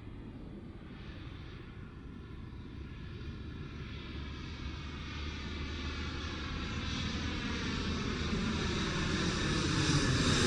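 Airplane approaching overhead, its engine noise growing steadily louder, with a sweeping, phasing tone to the roar as it nears.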